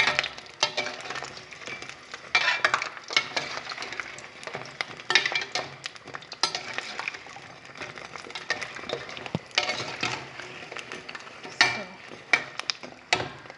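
Puff puff dough balls deep-frying in hot oil, with a metal spoon scraping and knocking against the pot at irregular intervals as they are turned, over a steady sizzle.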